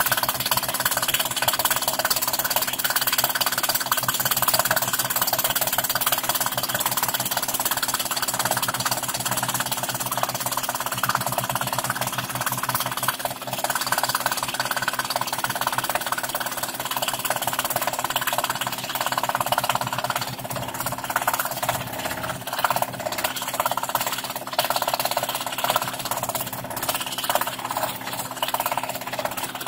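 Scroll saw running with its fine blade stroking rapidly up and down as it cuts intricate curves in thin plywood, a steady fast buzz.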